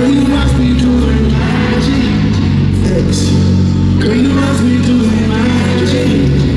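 Live concert music over a stadium PA system: a singer's voice over heavy, steady bass.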